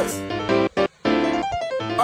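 Background music: a keyboard riff from a hip hop track, dropping out for a moment a little under a second in.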